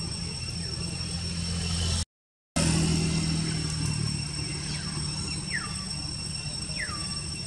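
A steady low engine hum, like a vehicle running nearby, under a constant high-pitched whine. The sound cuts out briefly about two seconds in. Near the end come two short falling calls, about a second and a half apart.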